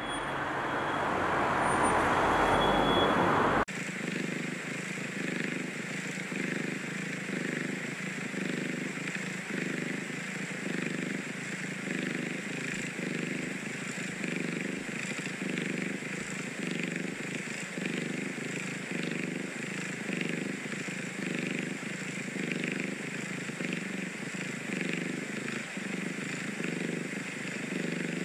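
Street noise swelling for the first few seconds, cut off sharply about four seconds in. Then a kitten purring steadily, the purr pulsing a little more than once a second with its breathing.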